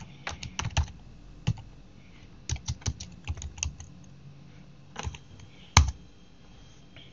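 Typing on a computer keyboard: irregular clusters of short key clicks as a command is typed, ending with one sharp, louder keystroke a little before six seconds in as the Enter key runs the command.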